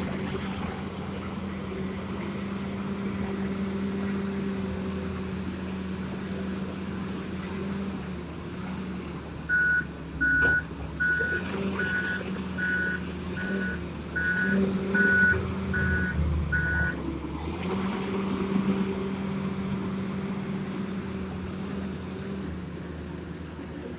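Komatsu WA320 wheel loader's diesel engine running steadily as it works a dump truck, with its reversing alarm sounding about ten even beeps through the middle, a bit over one a second.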